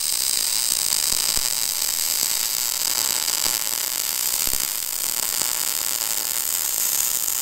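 Electric welding arc crackling steadily as a bead is laid, welding a steel high steer arm onto a Dana 60 steering knuckle.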